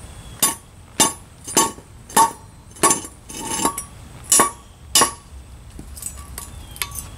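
Hammer blows on a seized oxygen sensor threaded into a removed exhaust manifold: about eight sharp metallic strikes roughly every half second, each with a short ring, then a few lighter taps near the end. The sensor's hex is rounded off, so its body is being knocked off to leave the threaded base for a socket.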